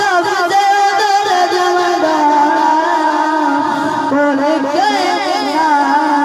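A boy singing a Punjabi naat into a microphone, one voice with ornamented, wavering lines, a long held note about two seconds in and quick melodic runs near the end.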